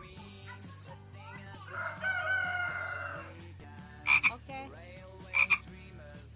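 Frogs croaking in short, loud double calls, a second or so apart in the second half. About two seconds in, a rooster crows once, a call lasting about a second and a half.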